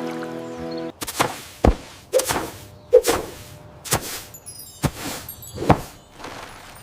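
Music with held notes that cuts off about a second in, followed by a series of about seven sharp thuds and swishes, spaced unevenly a little under a second apart.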